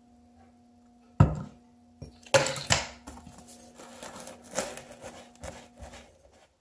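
Several sharp knocks between about one and three seconds in, then a silicone spatula scraping and stirring a damp sugary powder mix against the sides of a ceramic bowl.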